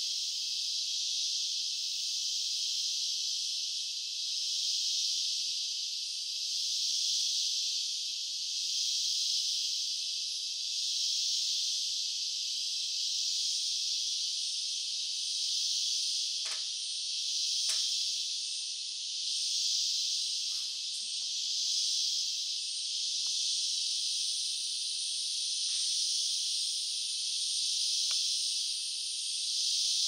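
Dense, high-pitched insect chorus buzzing steadily, swelling and fading gently every few seconds. A couple of faint clicks come about halfway through.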